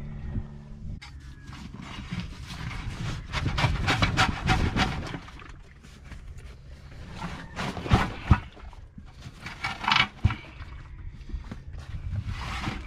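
Rubber inner tube being dragged out from between a rear tractor tire and its steel rim by hand: irregular rubbing and scraping of rubber on rubber and metal, with a couple of sharp knocks about eight seconds in.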